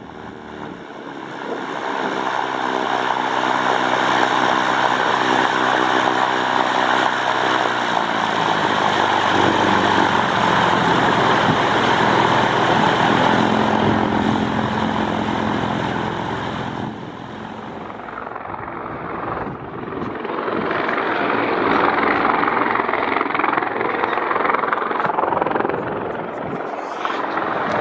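Piston engine and propeller of a Cirrus light aircraft running close by on the ground. The engine note shifts about eight seconds in, drops off for a few seconds after the midpoint, then rises again.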